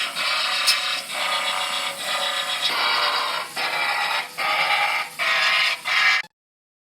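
Power drill boring holes in sheet-steel backer plates, run in about seven short bursts with brief pauses. It cuts off abruptly near the end.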